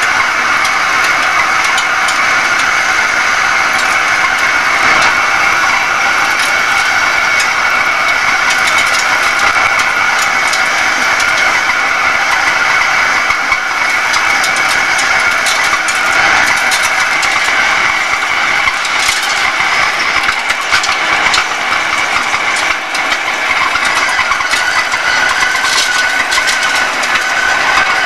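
Hegenscheid 105 underfloor wheelset lathe running, its tool turning a railway wheel. A steady machine noise with a high whine, and scattered sharp clicks that become more frequent in the second half.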